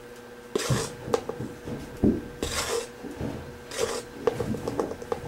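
Plastic measuring teaspoon scooping powdered herbs from a cardboard canister and tipping them into a plastic bowl: several short scrapes with light clicks and taps of plastic on plastic.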